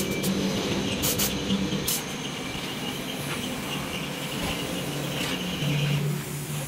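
A steady low mechanical hum, with a couple of short, sharp hisses about one and two seconds in.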